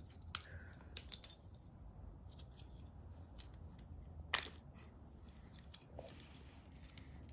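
Sharp plastic clicks and snaps from the broken housing and parts of a VEX IQ Smart Motor being pried apart by hand: a few scattered clicks, a quick cluster about a second in, and the loudest snap about four seconds in.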